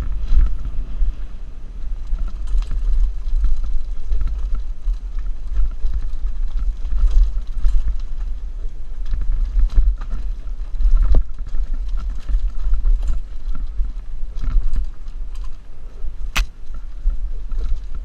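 Wind buffeting a helmet-mounted GoPro as a Mongoose Pinn'r mountain bike runs downhill, the wind a deep, constant rumble. Scattered clicks and rattles come from the bike over rough trail, with one sharp crack about sixteen seconds in.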